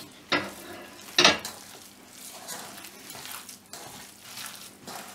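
A hand mixing raw chicken mince with coarsely ground onion and spices in a steel bowl, giving an uneven wet mixing noise. There are two sharp knocks against the bowl, about a third of a second in and again just over a second in.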